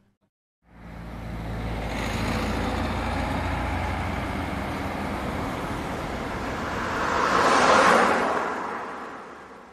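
Road traffic: cars running along a road, a steady rumble that fades in after a short silence. One louder vehicle passes, swelling and falling away about eight seconds in, and then the sound fades out.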